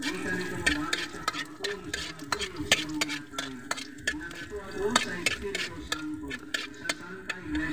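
A spatula stirring and scraping chopped pieces frying in oil in a black wok, with frequent clicks and scrapes of the utensil on the metal over a light sizzle.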